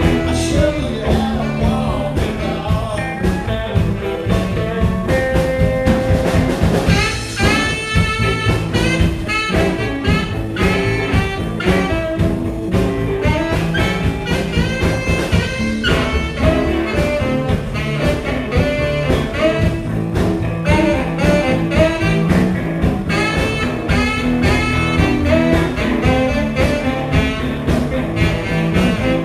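Live blues band playing: a saxophone plays lead lines over electric guitar, keyboard and a steady drum beat.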